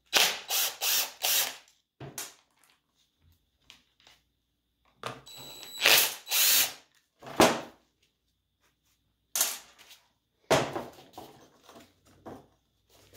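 Cordless drill run in a series of short bursts, each a second or so, spinning out the screws of a Bosch starter motor's end housing.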